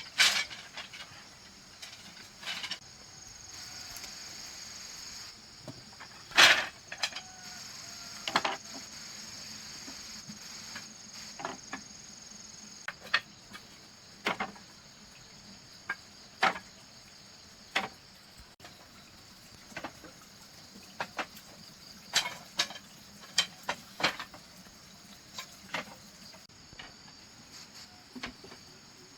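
A steady high insect drone, with sharp knocks and taps every second or two, as of bamboo being worked by hand.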